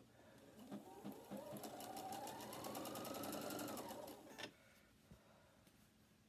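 Domestic electric sewing machine stitching a seam. Its motor whine rises in pitch as it speeds up, over rapid, even needle ticks, then stops abruptly about four and a half seconds in.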